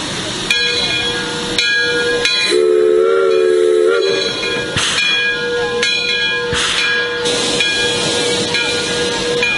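Small steam locomotive standing with hissing steam jets from its cylinder cocks, and repeated sharp struck ringing tones. About two and a half seconds in, its chime whistle sounds once: a wavering chord lasting about a second and a half.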